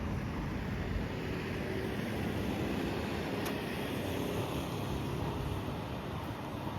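Strong wind buffeting the microphone as a steady low rumble.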